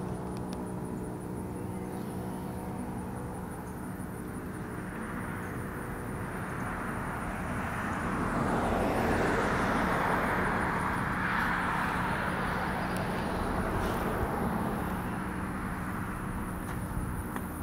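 Outdoor ambience with a steady low hum, and a car passing on a road that swells in over several seconds, peaks about halfway through and fades away.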